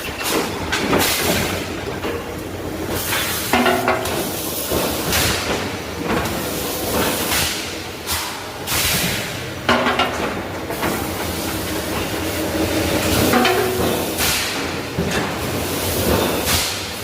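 Forge work: a continuous hissing, rushing noise that swells and fades every second or two, with a couple of sharper surges.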